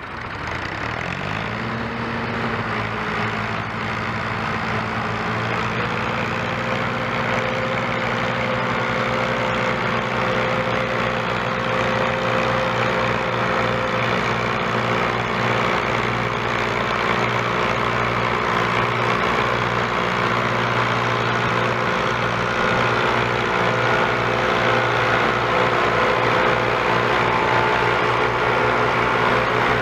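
Diesel tractor engines revved up quickly in the first two seconds, then held at high revs as they pull a heavily loaded sugarcane trolley, growing gradually louder.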